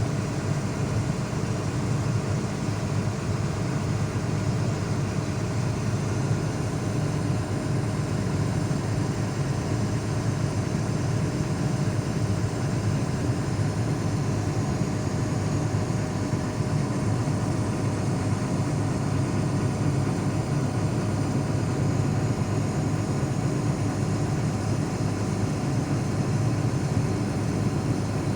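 Hyundai excavator's diesel engine running steadily at a constant speed, a low, even drone with no change in pitch.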